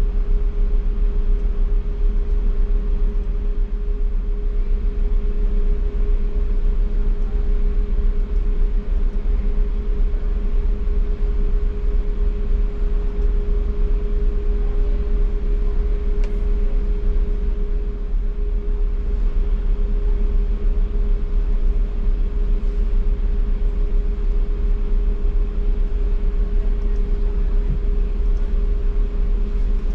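A running engine drones steadily: a loud, low rumble with a constant hum above it that never changes.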